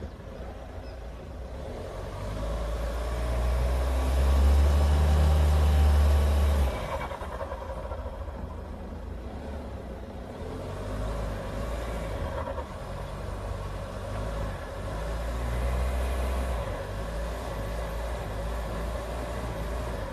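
Mahindra Thar's engine revving under load while the SUV is stuck on the crest of a dirt mound: a long loud push that cuts off suddenly about seven seconds in, then a lower running engine with a second, smaller rise later on.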